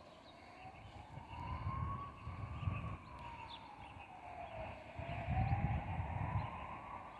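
A siren wailing, its pitch rising and falling slowly, one full sweep every four to five seconds, over low, irregular rumbles.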